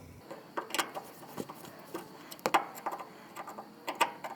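Scattered light clicks and taps, about a dozen at irregular spacing, from hand tools and small parts being handled and tightened.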